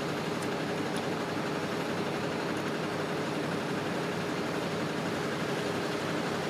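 A steady, even hum of idling engines, with a faint steady tone running through it.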